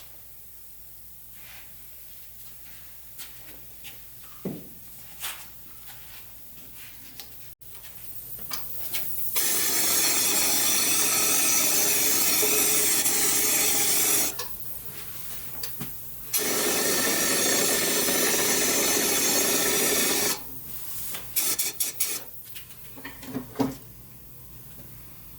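Powder coating gun spraying powder with compressed air: two long, steady hisses of about five and four seconds, with a few handling clicks before and after.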